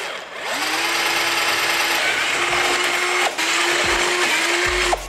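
Cordless drill drilling a hole through the plastic of a motorcycle's tail section. The motor spins up about a quarter second in and then runs at a steady whine, easing off briefly twice.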